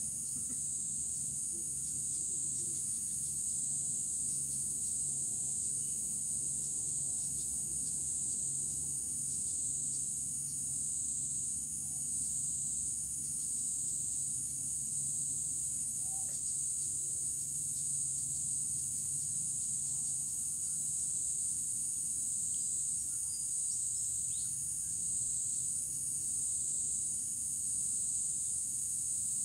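Insect chorus, a steady high-pitched trill that swells and fades in a slow, regular pulse.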